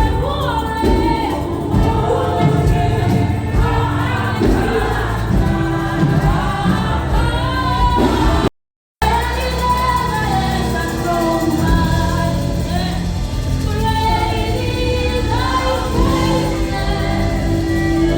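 Gospel choir singing a worship song over instrumental backing. The sound cuts out for a moment about halfway through.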